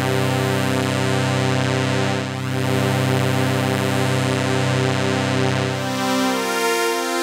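Novation Peak synthesizer sounding a sustained, many-harmonic patch ('Blue Steel' factory preset), its held notes wavering as oscillators 2 and 3 are detuned with the fine-tune controls. At about six seconds the held pitches shift to new notes.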